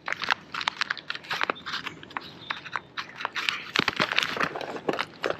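Plastic packet of soft plastic worms crinkling and crackling as it is handled, in quick irregular crackles that are loudest around the fourth second.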